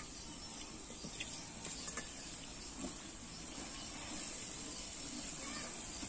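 A ladle stirring masala in a large aluminium pot, with a few light clicks and scrapes over a faint steady hiss.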